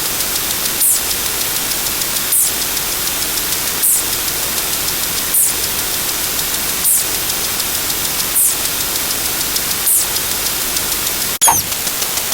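Steady loud hiss like static, with a short high-pitched chirp repeating about every one and a half seconds. Near the end it cuts out for an instant and a different sound effect starts, with a falling tone.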